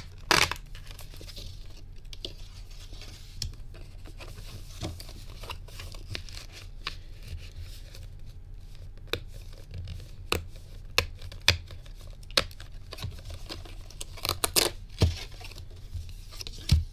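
Plastic wrap being torn and crinkled off a cardboard trading-card booster box and the box lid pulled open: scattered sharp crackles and clicks, with a busier flurry near the end.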